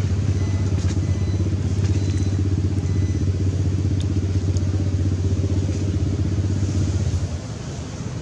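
A small engine running steadily: an even low hum with a fast regular pulse, which drops in level about seven seconds in.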